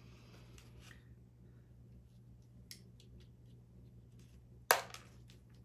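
Small clicks and taps of a hard drive and its mounting parts being handled during fitting into a DVR, with one sharp, loud click near the end.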